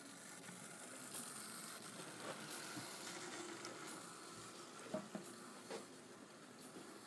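Faint steady hiss of room noise, with a few soft clicks and knocks spread through it.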